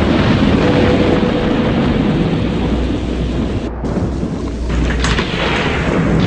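Thunderstorm: dense, steady rain noise with low thunder underneath.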